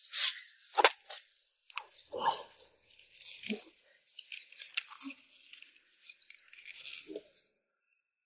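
Red PVC electrical tape being pulled off the roll and wound around a spliced wire joint: faint, irregular crackling and rustling with a few sharp clicks.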